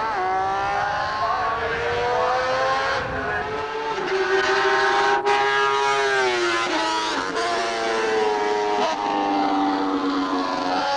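Honda RC166 250cc inline-six four-stroke Grand Prix racing motorcycle accelerating hard away up the straight. Its high-pitched engine note climbs through the revs and drops sharply at each upshift, about three times.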